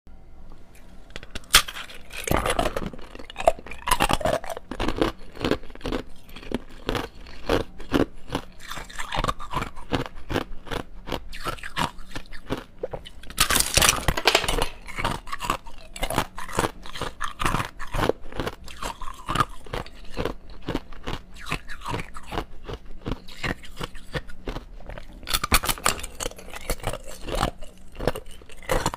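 Clear ice cubes being bitten and chewed close to a clip-on microphone: a steady run of sharp crunches and cracks, with a few louder bursts of crunching.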